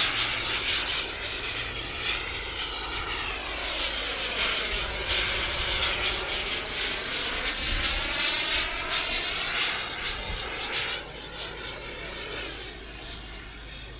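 Kingtech K45 model jet turbine in a Freewing A-10 RC jet flying overhead: a steady rushing turbine whine that sweeps down and back up in pitch as the model circles, growing fainter for the last few seconds.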